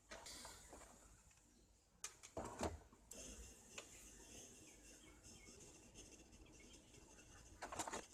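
Near silence, with a few faint clicks and rustles about two seconds in and again near the end.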